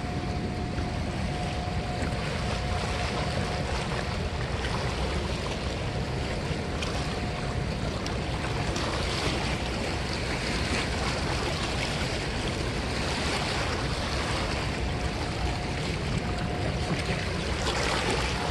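Steady rush of fast, turbulent river water churning against the rocky bank below a dam outflow, with wind on the microphone.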